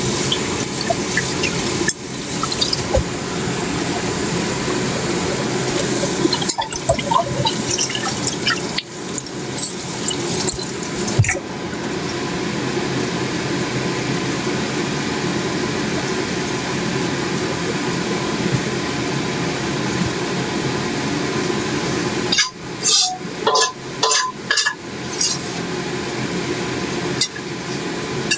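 Steady running water, as from a kitchen tap, with a quick run of clinks and knocks near the end.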